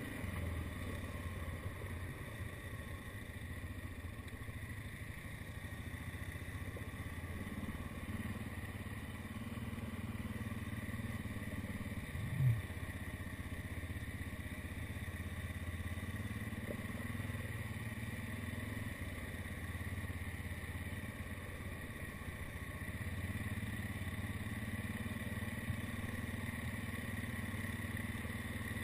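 ATV engine running steadily at low trail speed, picked up by a helmet-mounted camera on a rough dirt trail. One brief loud knock about twelve seconds in.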